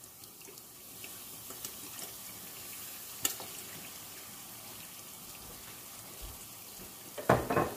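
Seasoned sauce sizzling steadily in a large stainless steel pot, with soy sauce poured in from a bottle at the start. There is a sharp click about three seconds in and a few knocks near the end.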